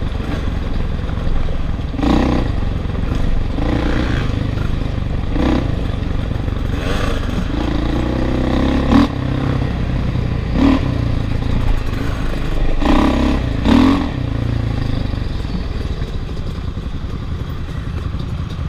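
Off-road engine running close by, its note swelling in several throttle surges, with loose rock clattering and scraping under the tyres. It settles to a steadier run over the last few seconds.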